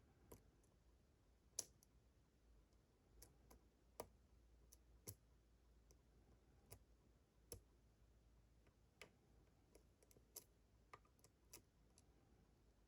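Faint, irregular small metal clicks of a lock pick working the pins of a challenge lock, with about fifteen separate ticks spread unevenly through the stretch as pins are lifted and set.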